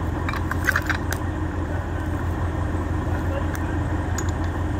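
A vehicle engine idling steadily, with a few short metallic clicks and knocks in the first second and a couple more later on.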